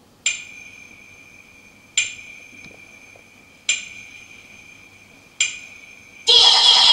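Opening of a hip hop dance backing track: four struck, bell-like tones about 1.7 seconds apart, each ringing out and fading, then loud, full music cuts in near the end.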